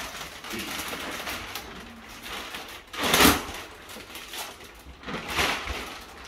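Thin plastic bag crinkling and rustling as it is pulled off a rolled, compressed mattress, with a louder rustle about three seconds in and another just after five seconds.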